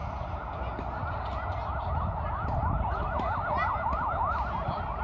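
An electronic siren in a fast yelp, its pitch sweeping up and down several times a second. It grows louder through the middle and then fades.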